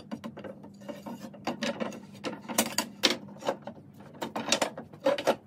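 Planed pallet-wood slats knocking and clattering against each other as they are handled and turned on the bench during a glue-up, in quick irregular knocks, with some scraping of wood on wood.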